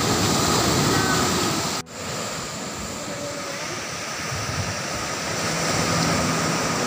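Ocean surf breaking and washing up a sandy beach: a steady, even rush of waves, cut off for an instant about two seconds in.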